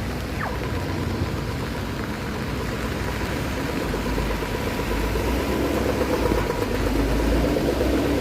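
Street traffic with a motor vehicle engine running close by. Its low rumble grows louder from about halfway through.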